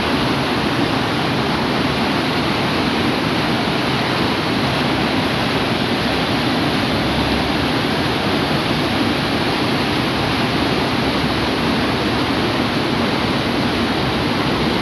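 A river in flood, its swollen, fast muddy water rushing over boulders in rapids: a steady, loud rush of water.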